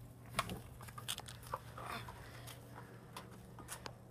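Faint handling noise: scattered light clicks and soft rustles, over a low steady hum.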